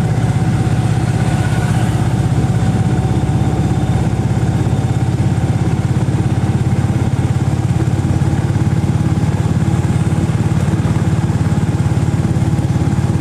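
Engine of a road vehicle on the move, running steadily at an even speed: a low drone with a fast, regular pulse and no change in pitch.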